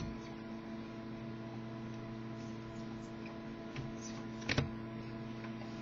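Steady electrical mains hum with a faint hiss, and one brief click about four and a half seconds in.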